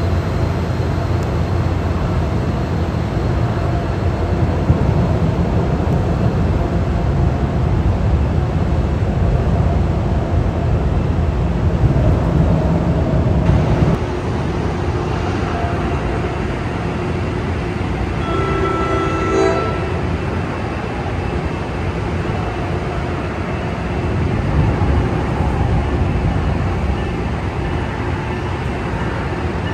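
NJ Transit diesel locomotive running with a low, steady rumble. About halfway through the sound changes abruptly to a softer steady rumble, and a few seconds later a short train horn blast sounds in the distance.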